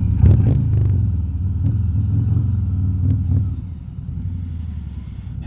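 Harley-Davidson Road King Special's V-twin engine running at low revs in traffic, a steady low rumble that gets quieter about two-thirds of the way through.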